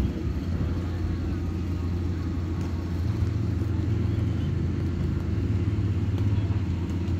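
Steady low machine rumble, like an engine or motor running, its pitch stepping up slightly about three seconds in.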